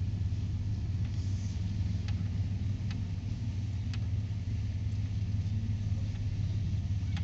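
A car with a freshly rebuilt 4L60E automatic transmission cruising on a test drive: a steady low drone of engine and road noise, with a few faint ticks.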